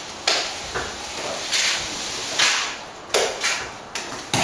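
Plasterer's trowel scraping lime mortar out of a plastic bucket and against a brick wall: a series of short, sharp scrapes and knocks, roughly one every half second to a second.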